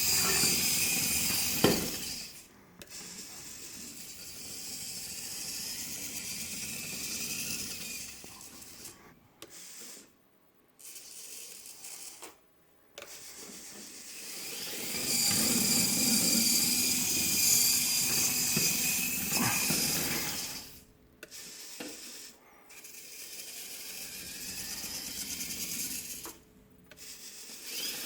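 Continuous-rotation hobby servos driving a 3D-printed rover crawler, their motors and plastic gears whining in runs of several seconds that stop and start again several times, with a few short silent pauses.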